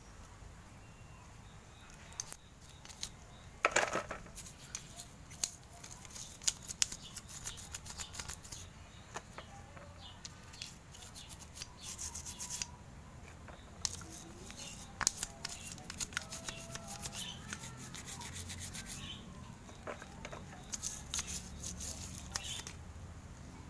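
Small carburetor parts being cleaned by hand: irregular scratchy rubbing and scraping strokes with light clicks of metal parts, coming in spells with short pauses between.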